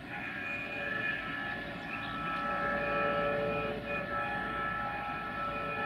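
LDE2100 diesel locomotive's horn sounding one long, steady blast of several tones together, the train not yet in sight.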